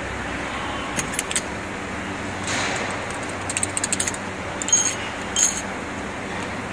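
Steady hum of an injection molding machine, with light clicks and clinks as molded LED lamp cup shells are pulled off the mould cores by hand: a few clicks about a second in, a quick run of clinks around four seconds, and two sharper clicks near the end. A short hiss comes about two and a half seconds in.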